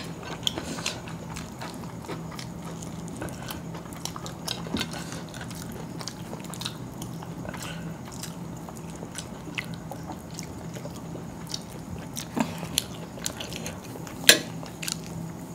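People eating chicken biryani with their hands: chewing, with scattered small clicks and taps of rice being handled on the plates. A steady low hum runs underneath.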